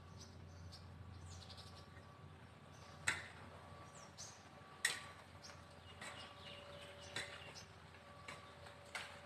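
A long-handled hoe chopping into garden soil: two sharp strikes about three and five seconds in, then lighter strikes every second or so. Small birds chirp faintly near the start.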